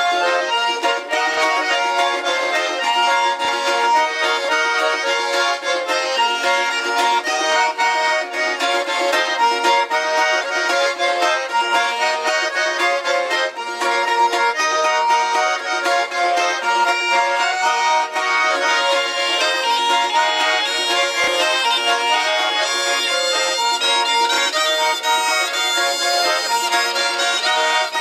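A Russian folk instrumental tune led by a garmon (Russian button accordion), with a balalaika playing along. Folk wind pipes join in toward the end.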